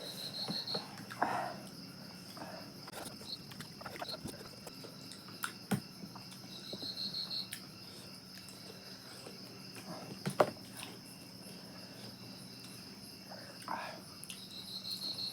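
Insects chirping: a steady high whine with a short trill that comes back three times. Scattered small clicks and knocks run through it, with one sharp knock about ten seconds in.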